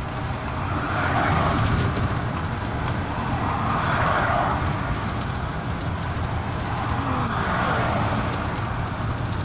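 Double-decker bus cruising at motorway speed, heard from inside on the upper deck: a steady low engine drone under road and wind noise that swells and eases about every three seconds.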